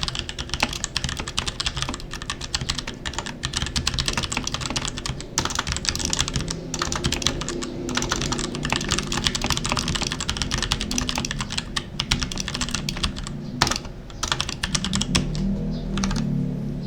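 Typing on an RK61 mechanical keyboard with brown tactile switches that have been in use for about a year: a fast, dense run of key clicks with a few brief pauses.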